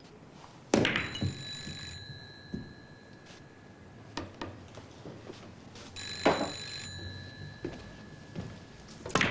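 Landline telephone bell ringing twice, each ring lasting about a second, with a loud clatter near the end as the handset is picked up.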